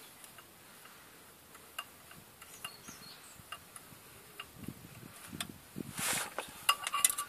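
Small, irregular metallic ticks and clinks from clutch pressure-plate bolts being fitted and turned by hand around a Peugeot 206 clutch cover on the flywheel, with a brief rustle about six seconds in and a quick cluster of clicks near the end.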